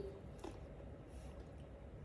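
Quiet room tone with a steady low hum and one faint click about half a second in.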